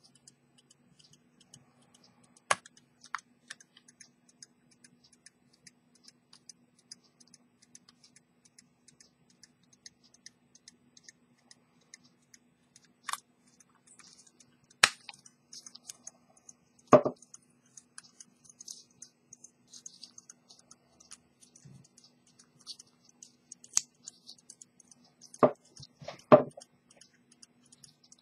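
Small metal parts of an antique fusee pocket watch clicking and tapping as they are handled by hand. There is a sharp click every few seconds, with a louder pair near the end, over a faint fast ticking and a low steady hum.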